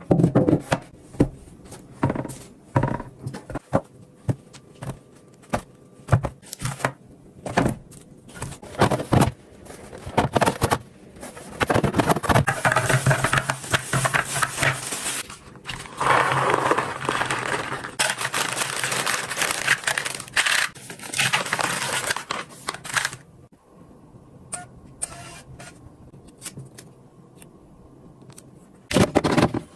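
Irregular knocks, clicks and scraping of items being handled and set down, with a long stretch of crinkling and rustling from about a third of the way in to a little past two-thirds, then a quieter lull near the end.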